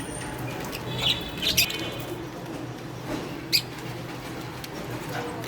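Budgerigars chirping: a short pitched call and a couple of sharp chirps about a second in, and another sharp chirp about three and a half seconds in, over a low steady hum.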